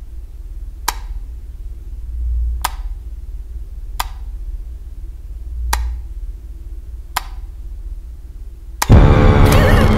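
Wall light switch flicked repeatedly, five sharp clicks about a second and a half apart, over a low rumbling drone that swells and fades. Near the end a sudden, very loud burst of horror-film music hits and carries on.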